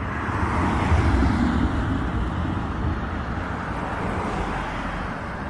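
Road traffic: a car going past, loudest about a second in and then slowly fading, with a low engine and tyre rumble under a steady wash of street noise.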